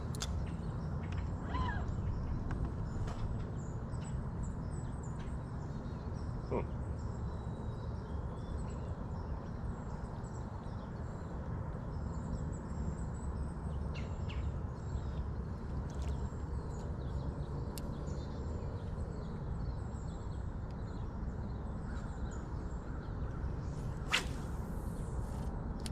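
Outdoor ambience: a steady low rumble with faint, scattered high chirps, likely birds, and one sharp click near the end.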